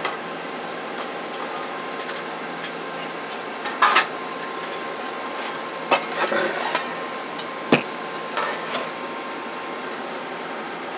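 A handful of sharp metal knocks and clinks as a CB radio's opened metal chassis is handled and set down on the bench, the loudest about eight seconds in, over a steady background hum.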